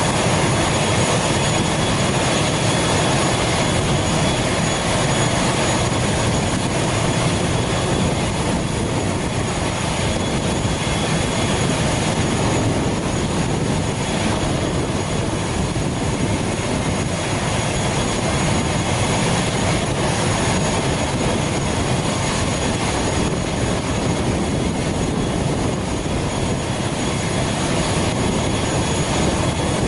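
ATR 72 turboprop's engine running on the ground during boarding, a steady loud rush with a thin high whine over it that fades out about halfway.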